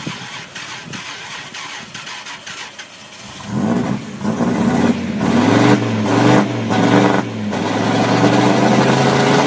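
Dodge Ram's 8.0-litre V10 running quietly at first, then revved hard from about three and a half seconds in. Its pitch climbs and drops several times before holding high near the end.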